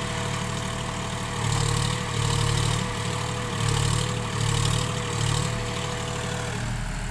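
John Deere 5050D tractor's three-cylinder diesel engine revving in repeated surges as it strains to drag a loaded dirt trolley stuck in mud. A steady thin whine runs under it and stops near the end.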